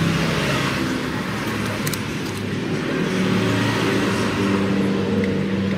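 Road traffic running steadily in the background, motor-vehicle engines whose pitch drifts slowly. A couple of small sharp clicks come about two seconds in.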